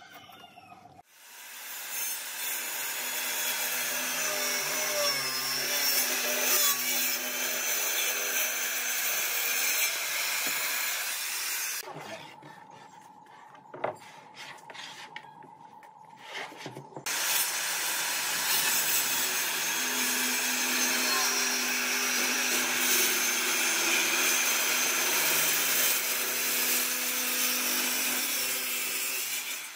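Handheld Makita circular saw cutting through wooden boards under load, in two long cuts of about ten seconds each. Between the cuts the saw is quiet and a board is set down on the bench with a single knock.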